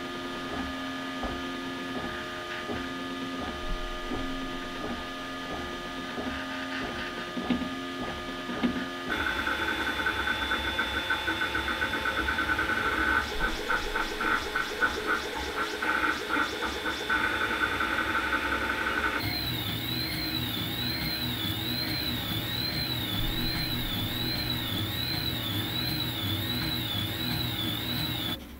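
Desktop FDM 3D printers running one after another, each with its own stepper-motor whine and fan noise. First an Ultimaker 3 with a steady hum and a regular pulse. From about 9 seconds a louder printer with a pulsing high whine, and from about 19 seconds an Atom3D 2.5EX delta printer whose high tone rises and falls about one and a half times a second.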